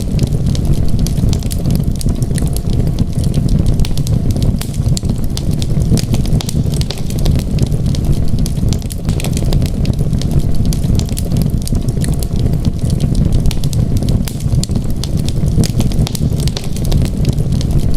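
Wood fire crackling, with frequent small sharp pops over a steady low rumble of the flames.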